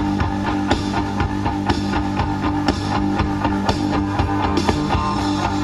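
Guitar music with a steady beat playing from a Dual car stereo's Bluetooth audio input through the car's speakers.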